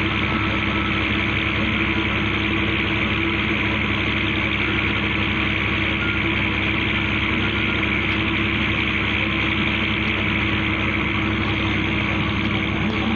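Fishing boat's engine running steadily while the boat is under way: a constant drone with no change in speed.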